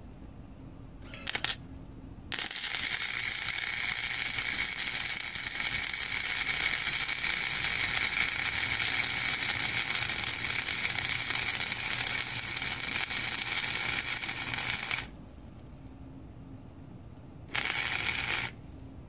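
Wire-feed welder arc crackling on steel angle iron: a brief tack about a second in, then one continuous weld bead of about twelve seconds, then another short burst of about a second near the end.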